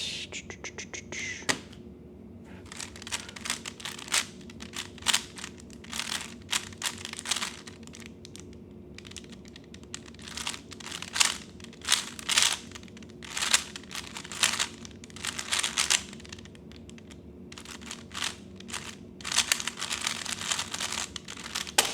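A 3x3 speedcube being turned rapidly in a timed solve: clusters of quick clicking and clacking turns broken by short pauses, running for about nineteen seconds.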